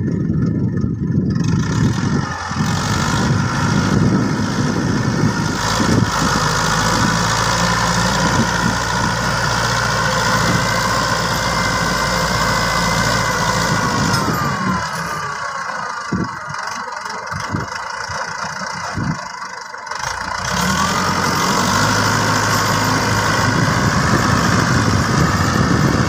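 TAFE 5900 DI tractor's diesel engine running steadily while working a rotary tiller through dry soil. It drops to a quieter, thinner sound for several seconds about two-thirds of the way through, then picks up again.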